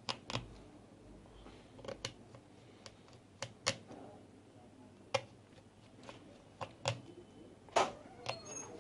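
Sharp, irregular clicks and taps, about ten in all, as small parts are pressed and clipped into place on a smartphone being reassembled.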